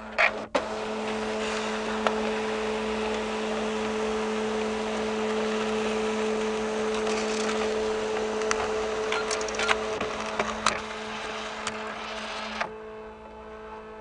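Fax machine receiving and printing an incoming fax: a steady motor hum and mechanical whir, broken by sharp clicks, the strongest just after the start. Near the end the whir drops away, leaving a quieter hum.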